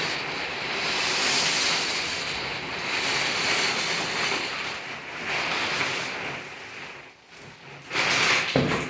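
Thick plastic drop sheet rustling and crinkling as it is shaken out and spread over furniture, in several swells, with a brief knock near the end.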